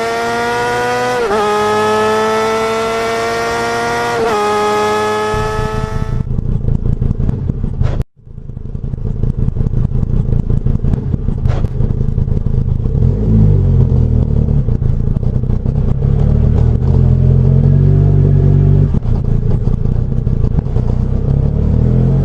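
Motorcycle engine sound revving, its pitch climbing and dropping back twice as if shifting gears. After abrupt cuts about six and eight seconds in, a lower rumbling engine sound follows, with rises in revs in the middle and at the end.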